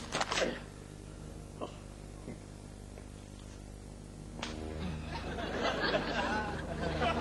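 Audience laughter builds from a little past halfway, over a steady low hum. A few short sharp sounds come right at the start.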